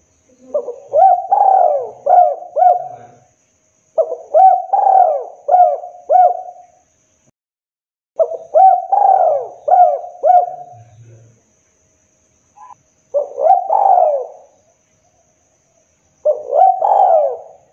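Spotted dove cooing: a phrase of several coo notes, repeated five times about every four seconds. This is the call used as a lure to draw in wild spotted doves.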